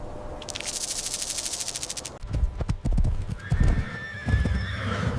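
A rapid, even rattle for about the first two seconds, then a horse whinnying over the knock of hooves.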